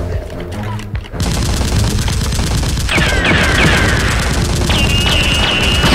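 Rapid, continuous automatic gunfire sound effect, dense shots packed closely together, starting about a second in. From about three seconds in it is joined by repeated falling whistle-like tones and a brief steady high tone.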